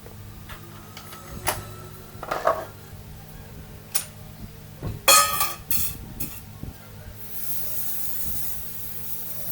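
Metal tools and parts clinking and clattering a few times, with a loud ringing clatter about five seconds in. Then, from about seven seconds in, an aerosol can of brake cleaner spraying with a steady hiss.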